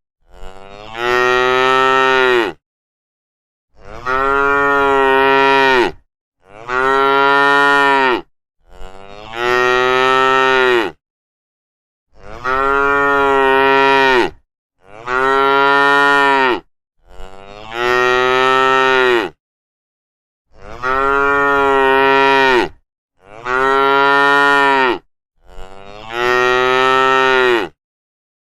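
Cows mooing: about ten long moos in a row, each around two seconds and falling slightly in pitch at the end, with short dead-silent gaps between them.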